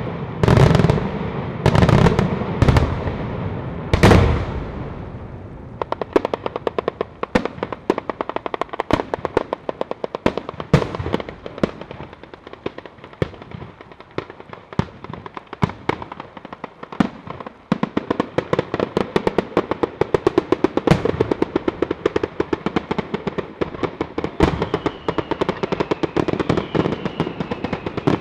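A Sanseverese-style ground barrage of firecrackers: about five heavy bangs in the first four seconds, then a dense, continuous crackle of rapid reports as the chain of charges fires along the ground. A faint high whistling tone joins near the end.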